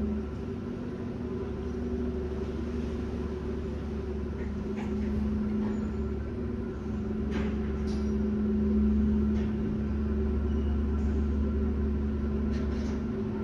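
Harbour passenger ferry's engines running as it comes in to dock: a steady low rumble with a humming drone, swelling a little around the middle.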